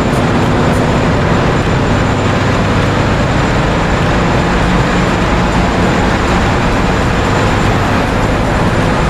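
Ship's engine-room diesel machinery running, a loud steady drone with a low hum under a dense roar of noise.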